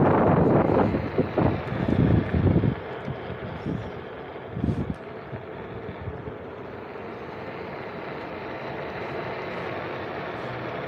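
Wind buffeting the microphone in loud gusts for the first few seconds, then dropping to a quieter steady hiss.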